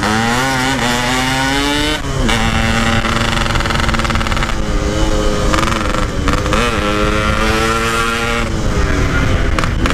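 Yamaha RX-King two-stroke single-cylinder motorcycle engine under way through an aftermarket exhaust: the revs climb through the first two seconds, drop sharply at a gear change, then hold fairly steady with a few brief throttle dips.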